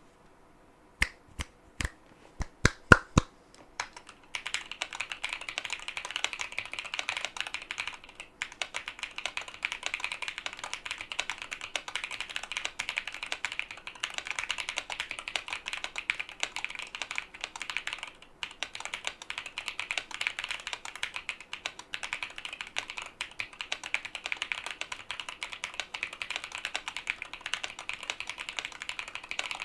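Mechanical keyboard with Akko V3 Lavender Purple tactile switches and Drop DCX keycaps being typed on: a few separate sharp clacks, then fast continuous typing from about four seconds in, broken by two short pauses.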